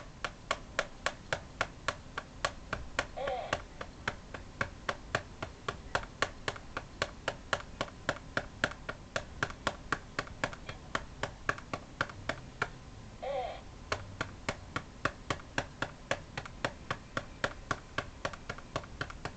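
Steady patting on the hard plastic back of a RealCare Baby infant simulator to burp it: about four sharp, loud pats a second. A short voice-like sound comes in twice, about three seconds in and again near thirteen seconds.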